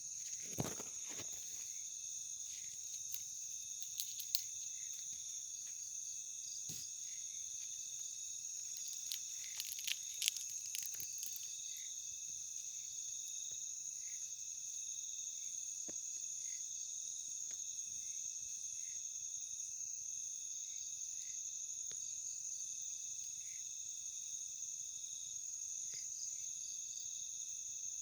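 Night insect chorus of crickets: a steady, high, shrill trill with a lower pulsing band, and short chirps about once a second. A few sharp clicks sound near the start, around four seconds in and around ten seconds in.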